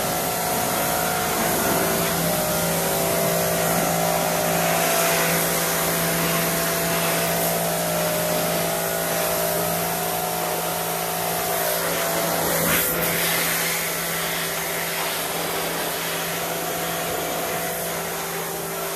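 Pressure washer running steadily: the machine's steady hum under the hiss of the high-pressure water jet spraying the motorcycle, rinsing degreaser and grime off the chain and sprockets.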